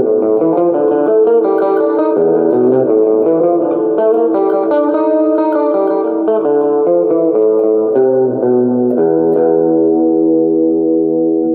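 Guitar playing a solo: a run of quick notes, then slower, longer-held notes from about eight seconds in.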